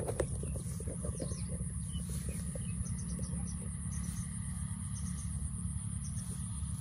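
Open-field ambience: a steady high-pitched insect trill with a few short bird chirps in the middle, over a steady low rumble. A short knock at the very start.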